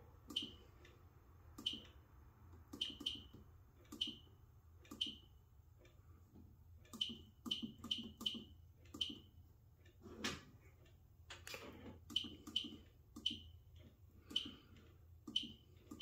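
Keypad of an Advanced MxPro 5 fire alarm control panel being pressed key after key, each press giving a short high beep; the beeps come irregularly, sometimes in quick pairs or threes.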